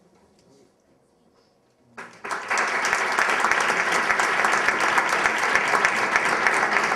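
Audience applauding: after a near-quiet pause the clapping breaks out suddenly about two seconds in and goes on as a dense, even clatter of many hands.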